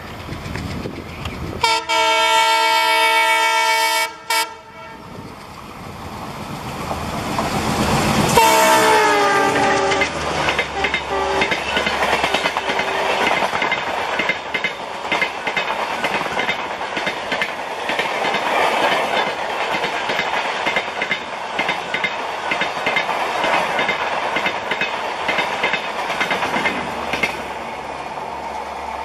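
An ALCo diesel locomotive of Indian Railways sounds its multi-tone horn in a held blast that cuts off, then a second blast whose pitch drops as the locomotive passes. After that the train's coaches run by at speed with a steady rumble and a fast clickety-clack of wheels over rail joints.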